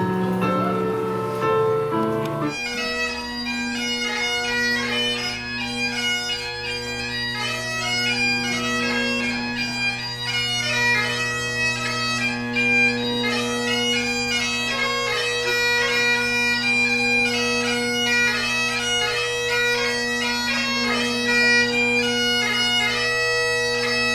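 Bagpipes playing a tune over their steady drones, which set in about two and a half seconds in after a moment of other music; the playing stops abruptly at the very end.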